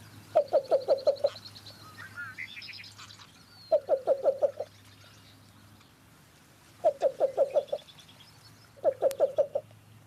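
Male least bittern giving its soft cuckoo-like cooing call: four short series of about five or six low coos each, a couple of seconds apart.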